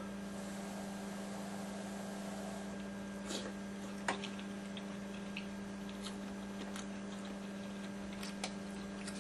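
A spoon clicking and scraping against a cup, scattered small taps while someone eats, over a steady low hum in the room.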